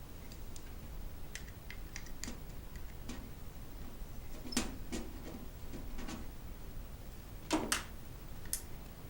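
Small irregular clicks and taps of a screwdriver working screws into the metal adapter bracket of an SSD, with a louder knock about seven and a half seconds in.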